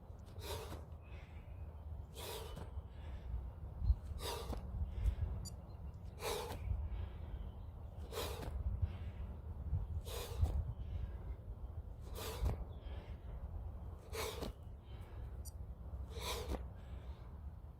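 A man breathing hard during explosive plyo jacks: a sharp, forceful exhale about every two seconds, with a low rumble underneath.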